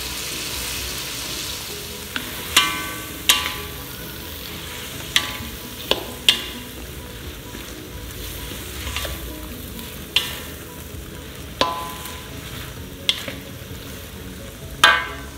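Squid, onions and soy sauce sizzling in a wok while a wooden spatula stirs, knocking and scraping against the metal wok about ten times; several knocks leave a brief metallic ring, the loudest near the end.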